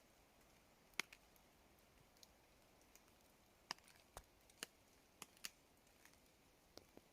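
Scattered raindrops tapping on a tarp overhead: about eight sharp, irregular taps, the loudest about a second in, against near silence.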